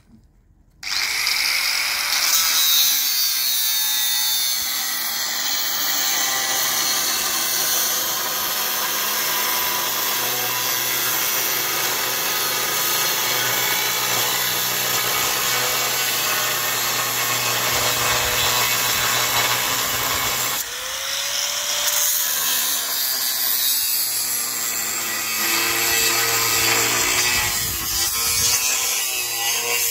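Angle grinder cutting steel, a loud steady grinding whine that starts about a second in and runs on, with a brief restart about two-thirds of the way through.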